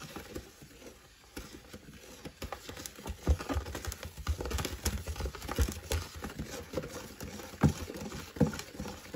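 A stick blender being worked through a thick, foamy soap mixture in a plastic bowl: irregular wet sloshing with clicks and light knocks of the blender head against the bowl, a couple of stronger knocks near the end.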